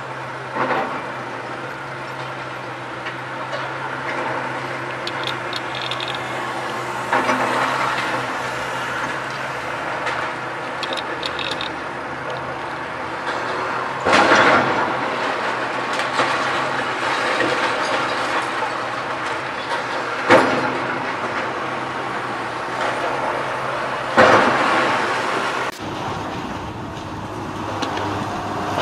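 Hydraulic excavator's diesel engine running steadily as it demolishes a concrete building, with concrete and rubble crashing down three times (about halfway through, and twice more later) and debris clattering in between.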